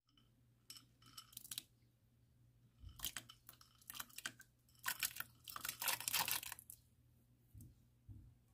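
Dried shrimp tipped from a bowl into a pot of water: crackly rattling and light splashing in several bursts, busiest about five to seven seconds in.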